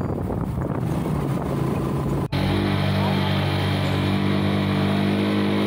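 Vehicle engine running steadily, heard from on board while riding, with rushing air noise. About two seconds in the sound cuts abruptly to a steadier, smoother engine drone.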